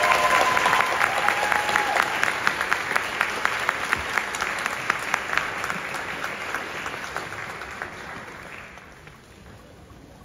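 Audience applauding in a hall, many hands clapping, dying away over the last couple of seconds. Someone in the crowd gives a long held whoop over the first two seconds.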